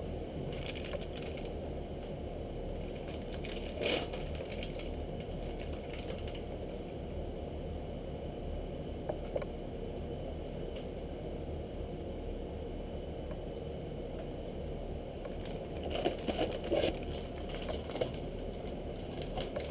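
Soft-plastic fishing bait packaging being handled: a few short crinkles and clicks, one about four seconds in and a small cluster near the end, over a steady low background hum.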